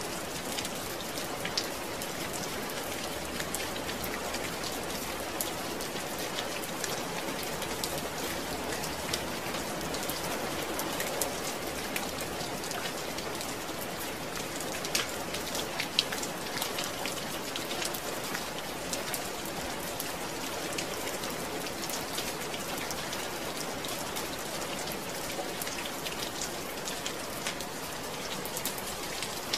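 Steady rain falling, a continuous hiss with many small drops ticking on a surface and an occasional louder drop.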